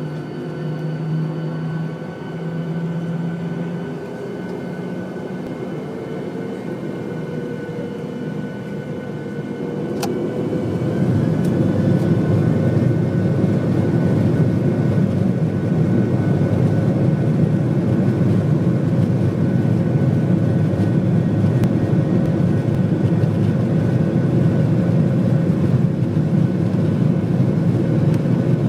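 Airliner cabin noise: a steady hum with faint whining engine tones, then a click about ten seconds in. After the click the engine tones rise slightly and the low rumble grows louder and holds steady.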